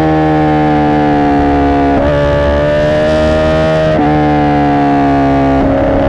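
Honda CBR1000RR SP1's inline-four through a Racefit Growler X exhaust, heard on board while the bike slows. The engine note sags steadily off the throttle and steps back up sharply with about three downshifts, roughly two seconds apart.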